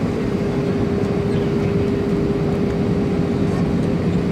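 Steady engine and airflow noise inside the cabin of an Airbus A319 in flight, with a constant droning hum running through it.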